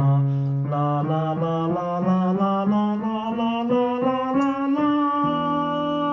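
A man's bass voice singing a slow scale upward, one held note after another rising in steps, to show the bass range from E2 to D4. The top note is held near the end.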